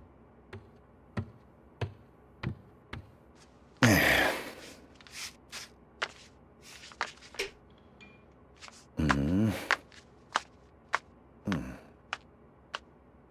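Footsteps of someone walking in sandals, a light step about every half second, with a few louder, longer sounds among them.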